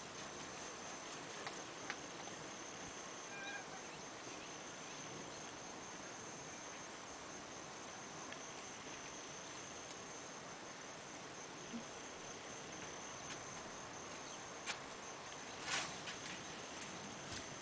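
A steady high-pitched insect trill, crickets, over a faint outdoor hiss. A few sharp clicks come here and there, the loudest about two seconds before the end.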